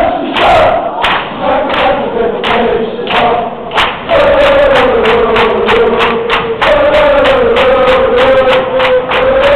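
A crowd of supporters singing a chant together in unison over a steady beat, getting louder and more sustained about four seconds in, where the beat quickens to roughly three a second.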